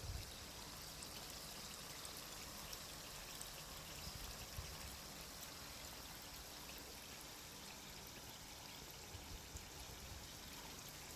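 Breaded chicken balls deep-frying in hot oil: a soft, steady sizzle with scattered small crackles.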